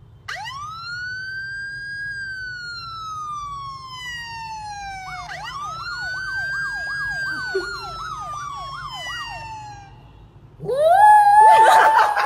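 Electronic emergency-vehicle siren in a long wail, rising and then falling slowly. It switches to a fast yelp of about two or three sweeps a second, which fades out. Near the end a louder, rougher tone rises and holds.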